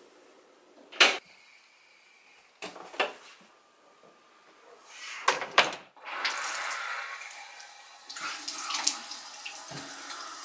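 A few sharp knocks and clicks, then a bathroom sink tap running steadily from about six seconds in.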